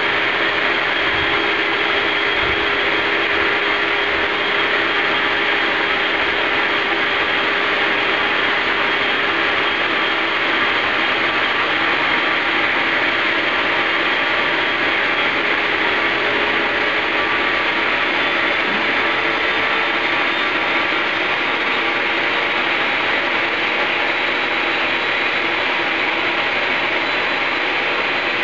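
Homemade turbocharger-based turbojet running steadily on a test stand: a loud, even jet roar with a steady whine over it.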